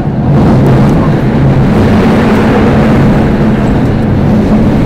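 Seoul Metro Line 5 subway train running, heard from inside the car: a loud, steady rumble with a low hum, swelling up just as it begins.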